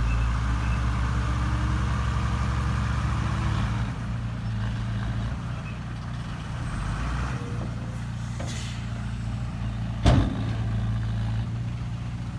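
Heavy diesel construction machinery running: excavator and dump-truck engines, a steady low hum that eases off about four seconds in. One short, sharp noise cuts through about ten seconds in.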